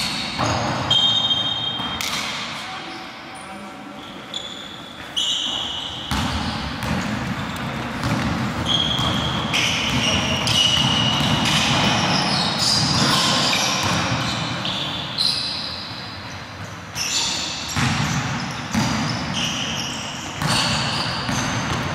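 Live basketball game on a hardwood court: the ball bounces, sneakers squeak in short high chirps scattered throughout, and players call out now and then.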